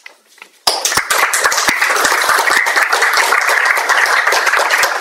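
Audience applause: many hands clapping in a dense patter that breaks out suddenly just under a second in.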